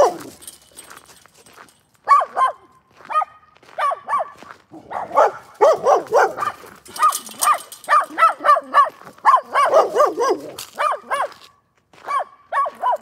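Dog barking over and over in quick runs of short, sharp barks, with brief pauses about a second in and near the end.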